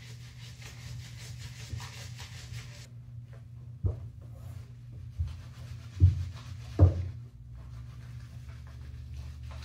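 Bare hands rubbing soapy lather into a wet Chihuahua's coat as it sits in a plastic wash tub. A hiss runs for the first three seconds and cuts off suddenly, and a few dull knocks come in the middle, the loudest two about six and seven seconds in.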